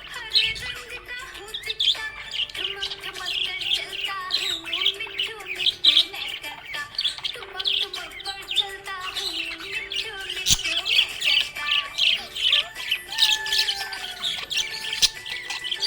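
Budgerigars chirping and warbling in a dense, continuous chatter of quick high notes, with a single sharp click about ten and a half seconds in.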